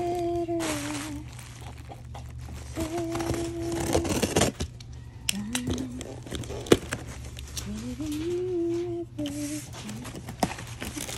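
A person humming a tune in several held notes, some sliding up into pitch. Between the notes, plastic packaging crinkles and tears, with one sharp click about six and a half seconds in.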